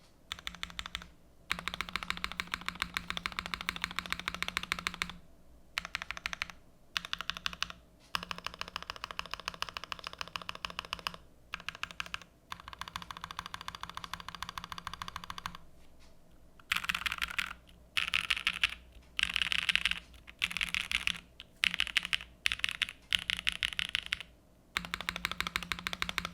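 Typing on a TGR 910 v2 ME mechanical keyboard with lubed Gateron Cream Soda linear switches and GMK keycaps, in runs of keystrokes broken by short pauses. In the second half the runs become shorter and louder, about a second each.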